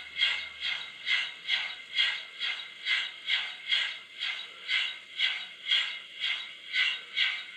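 Sound-equipped model of a DB class 10 steam locomotive chuffing steadily through its small onboard speaker: a hissing exhaust beat about twice a second.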